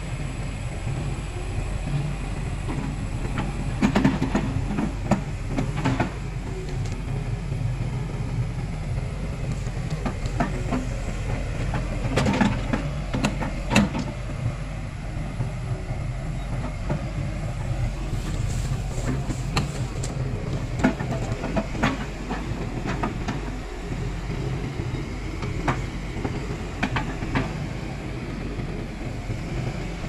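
XCMG crawler excavator's diesel engine running steadily, with sharp knocks and clanks now and then as the machine is worked.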